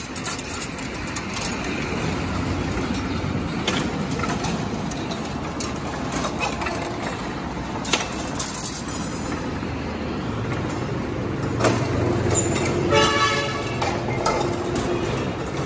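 Scrap steel-wire straightening machine running steadily, its electric motor and straightening rollers working wire through with a metallic rattle and a few sharp clanks of steel rods. A brief horn-like toot sounds near the end.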